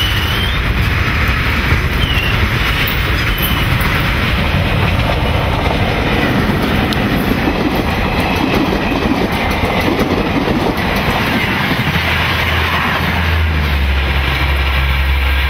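Trains passing close by at speed: a steady loud rumble with the wheels clattering over rail joints. A low steady hum joins in near the end.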